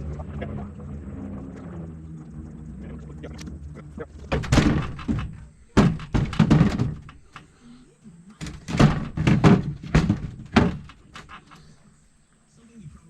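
Three clusters of heavy thunks and knocks, coming in quick runs in the middle and second half, over a low steady hum that fades out in the first few seconds.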